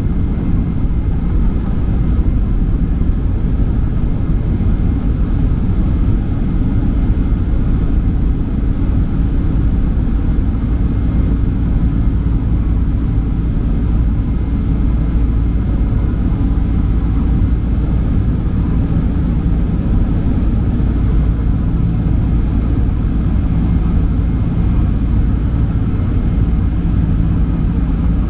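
Boeing 767-300's jet engines heard from inside the cabin at high thrust during the takeoff climb: a steady, heavy low rumble with a few faint steady whining tones above it.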